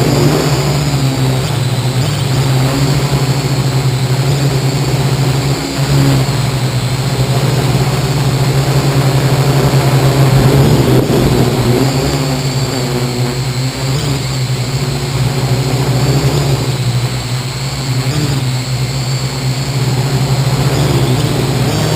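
Parrot AR.Drone 2.0 quadcopter's four electric motors and propellers running in flight, picked up by a camera mounted on the drone itself: a loud, steady hum whose pitch wavers as the motors speed up and slow down to keep it balanced.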